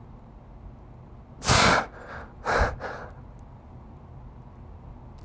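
A man's heavy breaths while straining through band-resisted overhead tricep extensions: two sharp, loud breaths about a second apart, each followed by a softer one.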